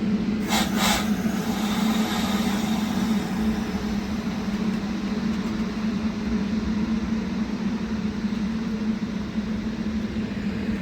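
Train at the station platform: a steady low hum, two sharp clacks about half a second in, then a faint high squeal that fades over the next couple of seconds.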